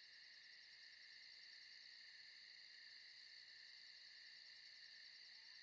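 Faint chorus of insects such as crickets: several steady shrill trills with a fast, even pulsing high above them.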